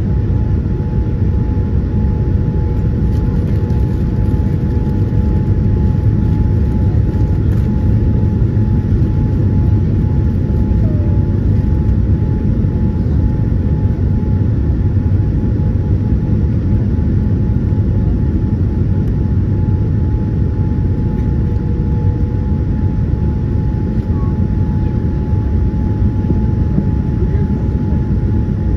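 Steady cabin noise of a Boeing 787-9 airliner on descent: the low rumble of its Rolls-Royce Trent 1000 engines and the airflow over the fuselage, with a steady tone running through it.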